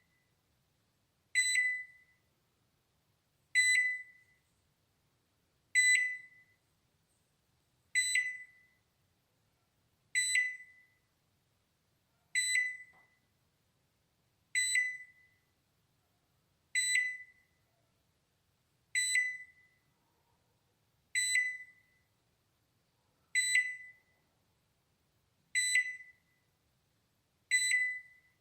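Balay microwave oven's timer alarm: a short, high, single-pitched electronic ding that fades quickly, repeating evenly about every two seconds. It signals that the cooking time is up.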